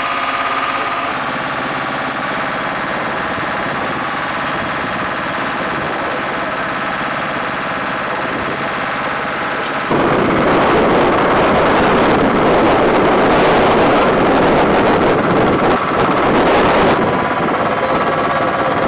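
Engines running on an aircraft flight line: a steady drone with a faint high whine, which jumps suddenly louder and noisier about ten seconds in.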